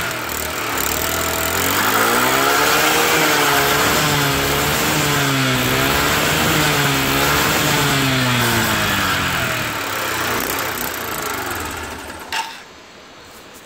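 1986 Honda Elite 150 scooter's four-stroke single-cylinder engine running, back to life after years of sitting, its revs rising and falling several times. Near the end the engine sound drops away and a sharp click is heard, then it goes quiet.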